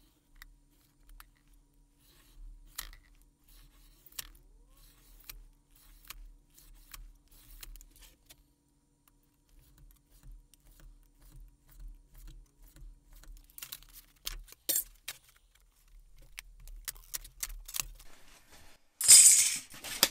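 Olfa scoring knife drawn along aluminium sheet against a steel straightedge: short scratchy strokes, spaced irregularly. About a second before the end, a loud metallic rattle of the sheet as the cut blank is handled.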